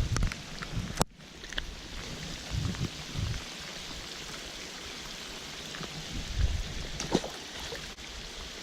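Heavy rain falling, a steady hiss, broken by a few sharp taps and low thumps.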